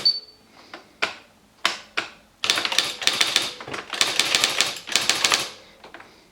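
Esselte 80 electric typewriter printing a stored header from its memory by itself: a brief high beep, a few single strokes, then a fast, even run of typing strikes for about three seconds that stops.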